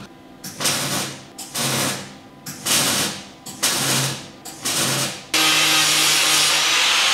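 MIG welding: a Clarke MIG welder crackles in five short bursts about a second apart, stitch-welding a steel patch into a car's chassis leg. About five seconds in, an angle grinder with a flap disc starts and runs steadily against the steel, louder than the welding.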